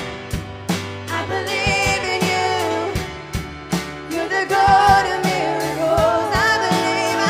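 Live gospel worship music: a woman singing lead over a band with a steady drum beat and held bass chords.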